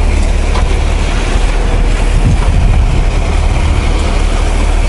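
Fishing boat's engine running steadily with a low rumble, under wind and water noise.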